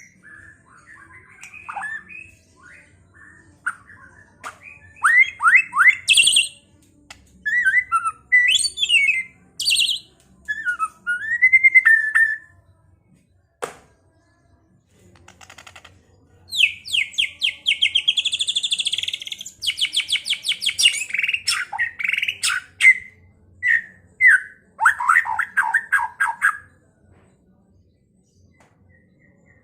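White-rumped shama (murai batu) singing: varied phrases of clear whistles and rising and falling glides, then after a pause about halfway through, fast rapid-fire runs of notes.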